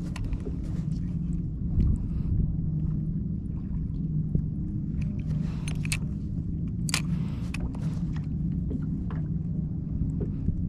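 Steady low motor hum, with a few sharp clicks and taps scattered through it.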